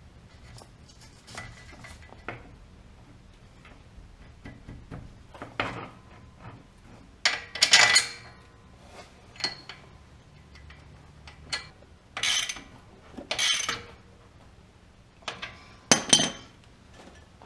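Irregular metallic clanks and clinks of hand tools and steel suspension parts being handled, with a few louder clanks bunched together near the middle and end.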